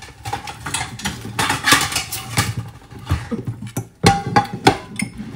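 Crispy pork leg being pulled apart by hand on a wooden board: irregular crackling and small knocks of skin, meat and bone being handled, with a sharper knock about four seconds in.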